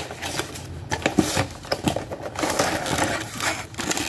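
Hands handling a cardboard product box and clear plastic packaging: irregular rustling, crinkling and small clicks.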